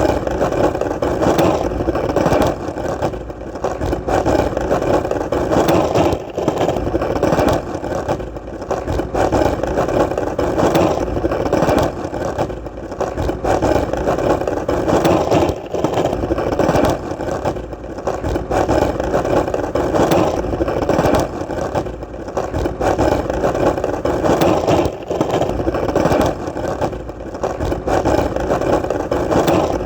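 Skateboard wheels rolling steadily on hard, solid ground: a continuous rolling noise that swells and dips every second or two, with a few faint clicks.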